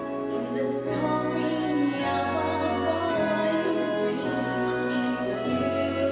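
Musical theatre song: a solo singer holds a slow melody over instrumental accompaniment, its bass moving to a new held note every second or two.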